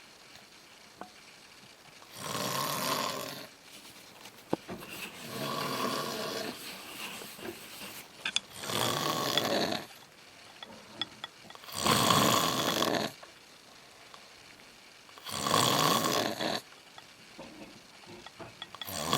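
A man snoring loudly in his sleep: one long snore every three to four seconds, five in all, with another starting at the very end. The second snore is quieter and longer than the rest.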